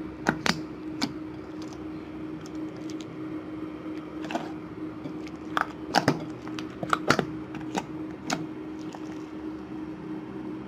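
Glossy white-glue slime being squeezed and stretched by hand in a glass bowl, giving irregular wet clicks and pops, over a steady low hum.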